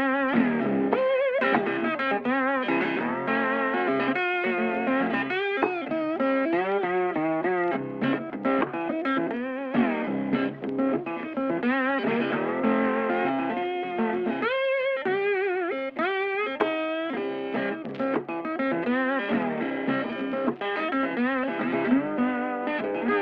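Background music led by electric guitar.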